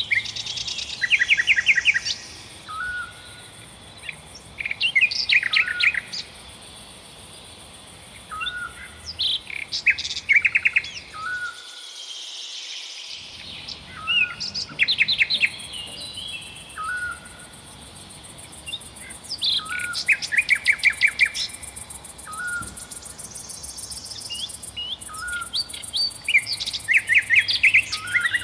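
Several songbirds singing: a short, hooked chirp repeated about every two seconds, between bursts of rapid trills of repeated notes, over a faint steady high hiss.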